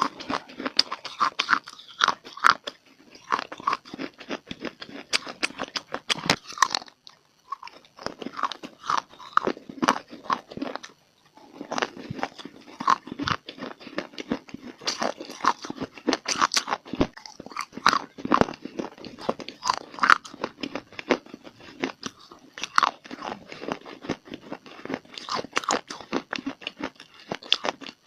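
Close-up crunching and chewing of hard, dry clay (mitti), a dense run of irregular sharp crunches with a couple of brief pauses between bites.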